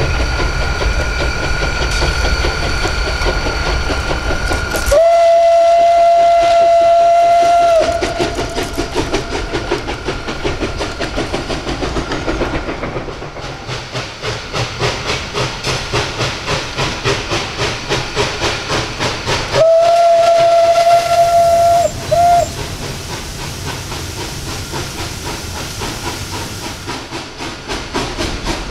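Steam locomotive 423.0145 (ČSD class 423.0 'velký bejček') working a freight train, its exhaust beating in a rapid even rhythm. Its whistle sounds a long blast of about three seconds around 5 s in, and near 20 s another long blast of about two seconds followed by a short toot.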